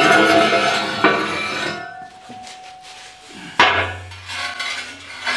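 Clatter and knocks of hard objects being handled and shifted, with a metallic ringing after the first hits. Sharp knocks come at the start, about a second in and about three and a half seconds in, and a low steady hum starts with the last of them.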